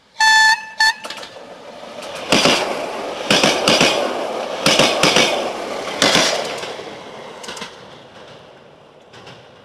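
Ex-DB VT 624 diesel multiple unit sounding its horn, a long blast and then a short one, then running close past with its wheels clacking over rail joints in groups of two and three over a steady rumble. The sound fades over the last few seconds.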